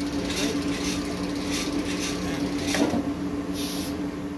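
Workshop machinery running with a steady low hum, with short hisses every half second to a second and a single sharp knock near three seconds in.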